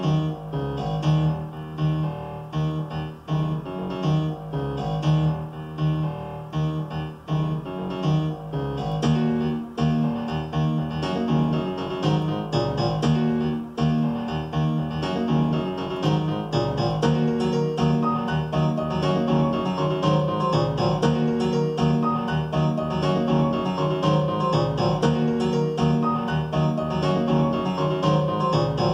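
Piano parts from an Akai MPC X playing in a repeating pattern over a steady low note, with more higher notes joining about halfway through.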